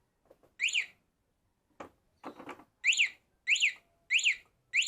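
A motorcycle two-way anti-theft alarm's siren gives short, high, sweeping chirps: one near the start, then a quick run of four about every half second in the second half, while the newly fitted alarm is locked and tested. A single click comes a little under two seconds in.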